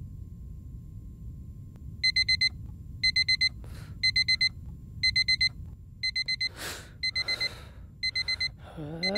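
Digital alarm clock beeping in quick groups of four, about one group a second, starting about two seconds in. A few short rushes of noise come between the later beep groups.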